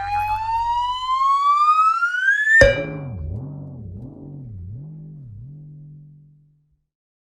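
Cartoon 'tuitt twing' sound effect: a whistle-like tone glides steadily upward for about two and a half seconds, then a sudden twang drops into a low wobbling boing that fades out by about six seconds in.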